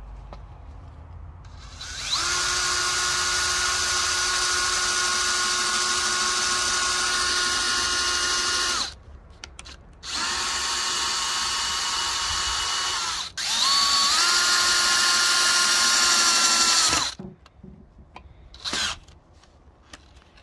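Electric power drill running at full speed in three long runs of a few seconds each, its steady whine winding up at the start of each run and down at the end.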